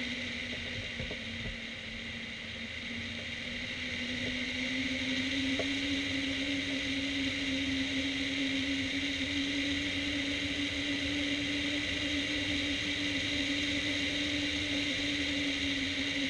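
Wind rushing past a hang glider in flight, with a steady hum that rises a little in pitch and grows louder a few seconds in, then holds.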